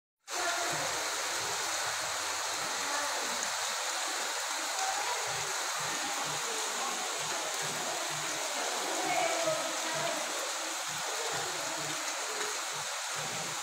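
Steady, even hiss with no clear rhythm, and a few faint short tones rising out of it.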